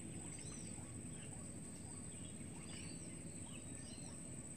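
Faint outdoor ambience with small birds chirping: short high chirps scattered throughout over a steady low background hiss.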